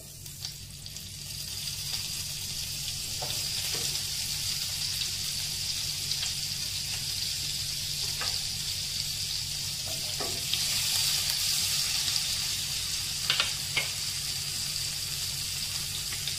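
Butter sizzling as it melts and foams in hot oil in a nonstick pot, building over the first couple of seconds into a steady hiss, with a few small pops.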